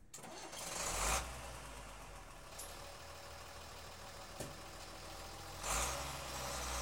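An engine running with a steady low rumble, swelling louder about a second in and again near the end, with a few light clicks.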